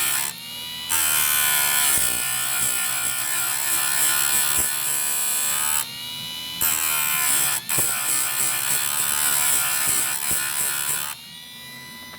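Electric chainsaw-chain sharpener grinding the cutter teeth of a chainsaw chain. The grinding wheel is brought down three times, each pass up to about five seconds long, with short pauses where only the motor's whine is left. Near the end the motor runs on alone, quieter.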